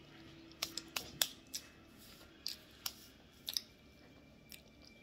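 Eating sounds: a run of short wet smacks and clicks, about eight in three seconds, from chewing a mouthful of honey-dipped sandwich and from sticky fingers pressing and parting.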